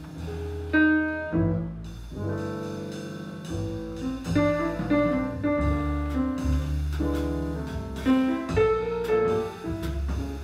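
Jazz quartet playing live: an alto saxophone plays a melody of held and moving notes over piano, pizzicato double bass and a drum kit.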